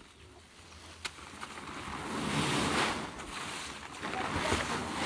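A large woven plastic tarp rustling as it is lifted and dragged over the ground, with the dried coffee cherries on it sliding and rattling as they are gathered. The noise swells about two seconds in and again near the end, with a sharp tick about a second in.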